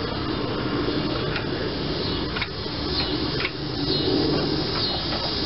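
A few light clicks from the lawn tractor's throttle and choke linkage being moved by hand to check that the carburettor choke closes, over a steady background hiss.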